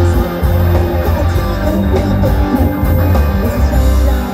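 A live rock band playing loudly: electric guitars, bass guitar and a drum kit, with a heavy, pulsing low end.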